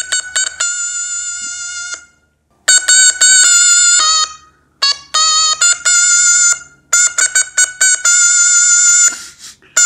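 A pocket stylus synthesizer, Stylophone-style, played with its stylus: a melody of quick short notes, each run ending on a long held note, in about four phrases with short pauses between them.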